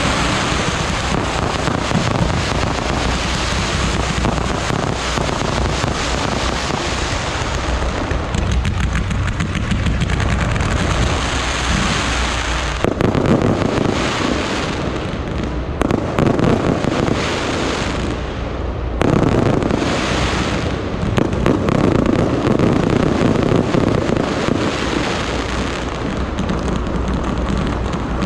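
Fireworks display: a dense, continuous crackling and popping of aerial shells and ground fountains going off together. It swells louder in several surges from about halfway through.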